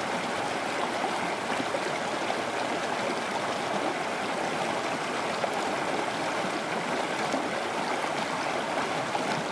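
Steady rushing, gurgling water noise, even and unbroken.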